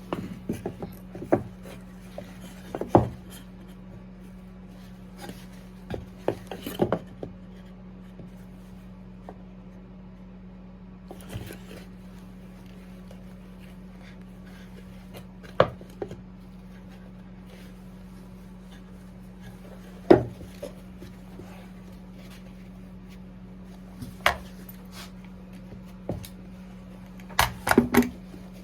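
Wooden birdhouse pieces being handled and fitted together: scattered short knocks, taps and rubs, a few at a time with pauses between, over a steady low hum.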